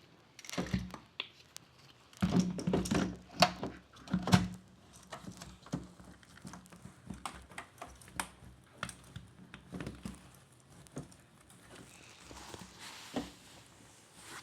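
Irregular clicks, taps and knocks of parts being handled, with a louder stretch of clattering and rustling between about two and four and a half seconds in.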